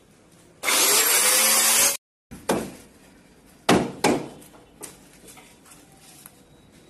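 A loud, even rushing noise lasting about a second and a half cuts off abruptly, then a carpenter's work on a wooden cabinet gives four sharp knocks on wood and laminate panel over about two seconds, with a few fainter taps after.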